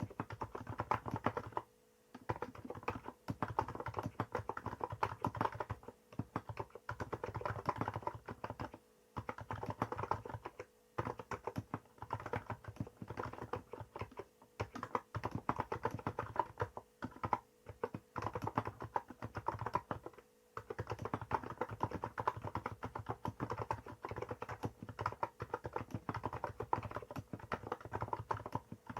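Hansung GK868B electrostatic capacitive keyboard with 50 g switches and Apple-style keycaps being typed on quickly. The keystrokes come in runs of a few seconds, broken by short pauses.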